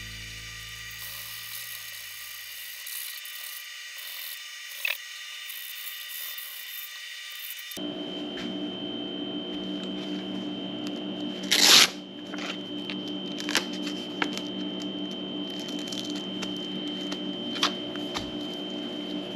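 A small high-speed power tool running with a steady whine, starting abruptly about eight seconds in, with a brief louder burst about four seconds after it starts.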